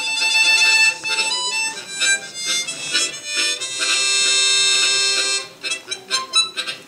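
Harmonica playing a melody with chords: quick phrases, then a long held chord about four seconds in, followed by short detached notes near the end.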